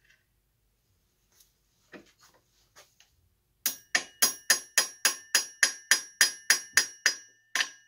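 Small hammer tapping a short threaded lamp pipe down into a brass lamp fitting. A few faint knocks come first, then a bit past halfway a steady run of sharp metallic taps, about four a second, each with a short ring.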